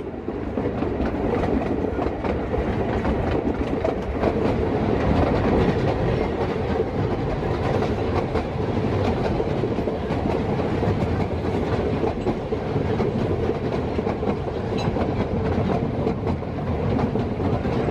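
Narrow-gauge train running steadily along the track, heard from inside an open carriage: an even rumble of wheels on the rails with light clicking and rattling.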